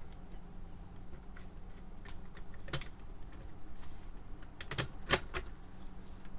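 A few light, separate clicks and taps of acrylic panels and their machine bolts knocking as the stacked front-panel layers are lowered onto the circuit board's spacers; the sharpest click comes about five seconds in.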